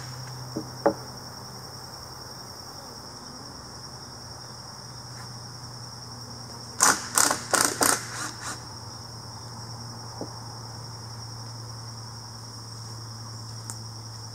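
Cordless drill driving screws in a run of short bursts about seven seconds in, after two brief blips near the start, as the guide board is fastened to the log. Insects trill steadily throughout.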